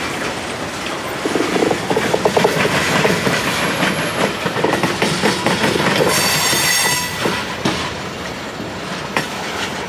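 Freight train cars, covered hoppers and tank cars, rolling past close by, their wheels clattering over the rail joints. A brief high squeal from the wheels comes about six seconds in and lasts about a second.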